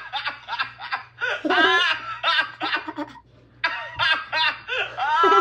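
Children laughing in repeated bursts of giggles and chuckles, with short pauses between them.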